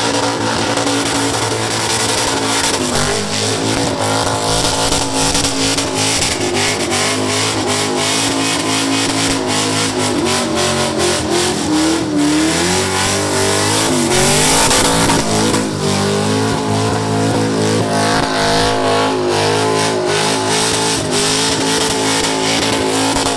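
Supercharged LS1 V8 in a burnout, held at high revs, its pitch rising and falling, over the rush of the spinning rear tyres.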